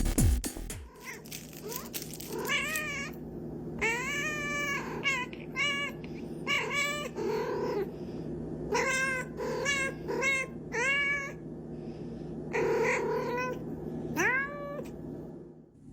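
A cat meowing again and again: many short, high calls that rise and fall in pitch, ending on a rising call near the end.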